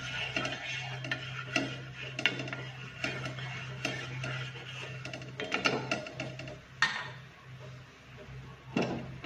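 Wooden spatula scraping and tapping across a non-stick tawa as it spreads cooking oil, in a run of short strokes. The strokes stop about seven seconds in. A steady low hum runs underneath.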